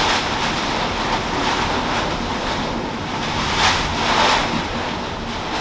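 Hurricane wind and rain beating against a house, a continuous rush that surges in gusts, the strongest a little under four seconds in.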